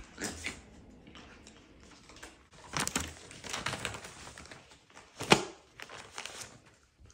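A mini dachshund mauling a paper cutout on a thin stick, making paper rustling and crinkling in irregular bursts. There is one louder sharp knock about five seconds in.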